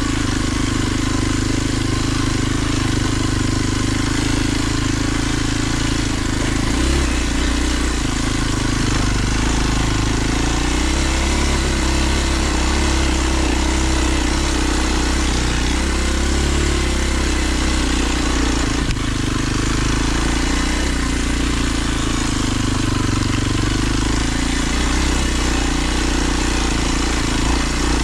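Kawasaki KLX 230 dual-sport's single-cylinder four-stroke engine running at low, steady revs while pulling up a steep, rocky trail, its note shifting a little with the throttle a few times.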